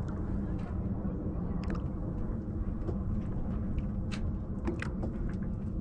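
Steady low rumble of wind and water noise aboard a J/105 sailboat under way, with a few short sharp clicks about two, four and five seconds in.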